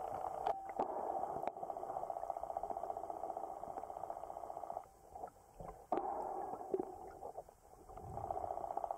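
Muffled underwater sound from a lake: a buzzing hum with scattered clicks. It drops away twice, about five seconds in and again near the end.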